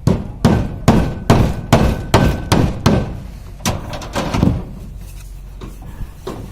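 Repeated hammer blows: about eight sharp strikes at a steady pace with a slight metallic ring, then a short pause and two or three more.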